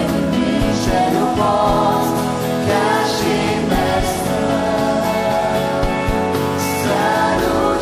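Contemporary Christian worship music: a band playing with singing voices over it.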